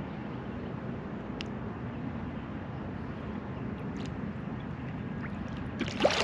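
Wind on the microphone and water against a kayak hull, a steady rushing noise with a few faint clicks. A short burst of louder crackling comes near the end.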